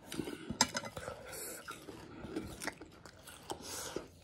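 Close-up chewing and mouth sounds of someone eating chicken biryani, with scattered sharp clicks.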